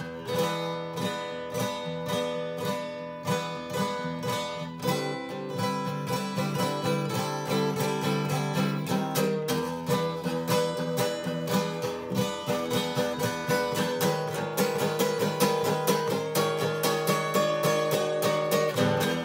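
Solo acoustic guitar played fingerstyle, a continuous run of plucked notes and chords with a steady, driving pulse.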